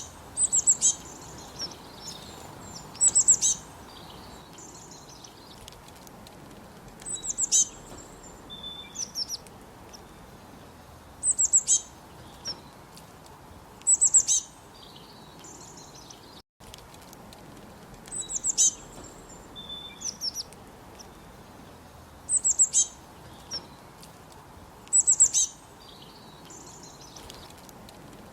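A forest bird repeating a short, high-pitched phrase of quick chirping notes every three to four seconds, over a steady background hiss of forest ambience.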